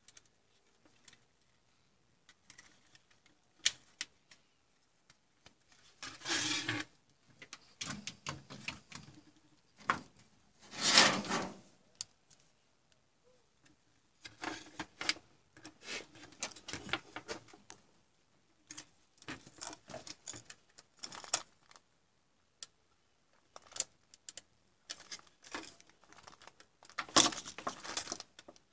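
Hands handling the opened plastic housing, circuit board and wiring of a digital photo frame: scattered small clicks and taps, with a few louder scuffing noises, the loudest about eleven seconds in.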